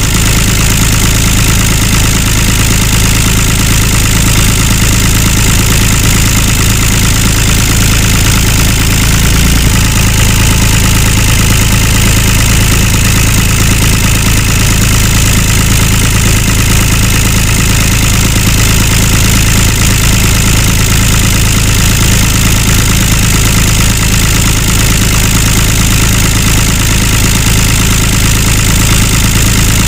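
Tractor engine idling steadily, with an even, unchanging chug that holds throughout.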